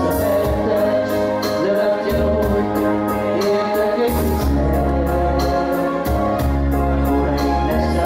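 Karaoke backing track with held electronic-organ chords and a steady beat, with amateur singers singing along over microphones.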